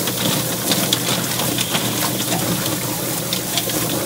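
Drum-type poultry plucker spinning a scalded chicken against its rubber fingers while a hose nozzle sprays water into the drum: a steady rush of spray with irregular slaps and knocks as the bird tumbles and its feathers are stripped.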